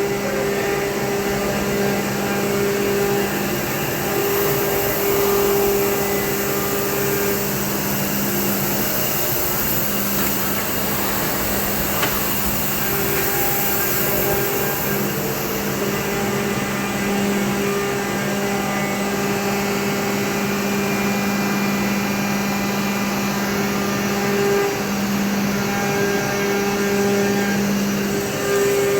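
Haas VF-6 vertical machining center running, a steady mechanical hum with two low tones that drop out and come back every few seconds.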